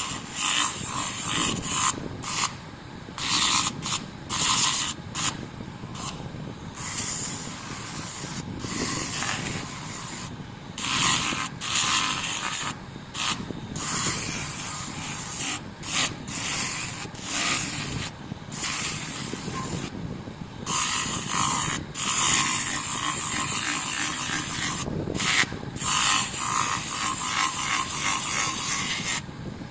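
Sandpaper rubbed by hand over a metal motorcycle footpeg: irregular rasping strokes with short pauses between them, as the surface is sanded down before polishing.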